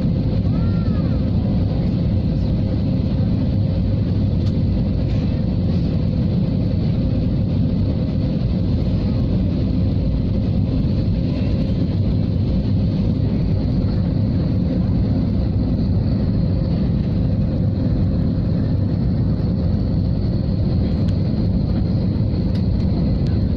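Steady jet-airliner cabin noise on descent: a low, even rumble of engines and airflow, with a faint steady hum and a thin high whine running under it.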